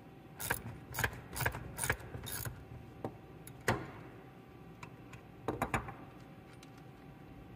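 Irregular metallic clicks and clinks of small metal parts and hand tools being handled while a car's short shifter is assembled on its shifter base. Several sharp clinks come in the first two and a half seconds, a single knock follows at about three and a half seconds, and a short cluster comes near six seconds.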